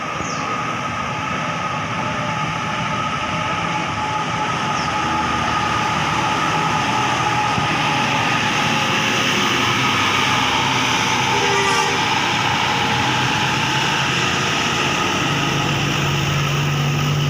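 Large bus running, its engine and road noise growing steadily louder; a steady low engine hum sets in near the end.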